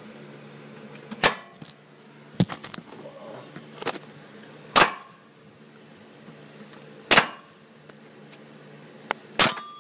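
Pneumatic air hammer with a punch bit hitting a snapped rear upper shock bolt in a Jeep Cherokee's shock mount. It fires in about five short, sharp bursts a second or two apart, driving the broken bolt out.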